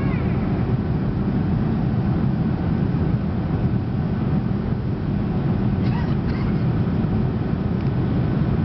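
Steady cabin noise of a Boeing 737 in flight: the low rumble of engines and airflow heard from a seat over the wing, during the approach to landing.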